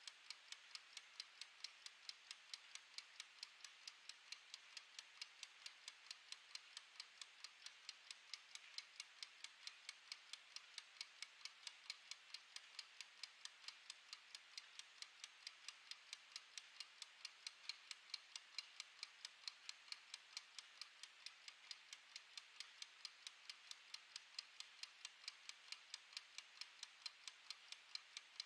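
Wind-up mechanical kitchen timer running down, its clockwork escapement giving a quiet, fast, perfectly even ticking.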